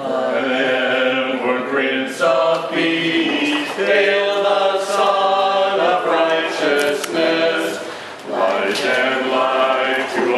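A small mixed group of carolers singing a Christmas carol together, unaccompanied, with a short breath pause about eight seconds in.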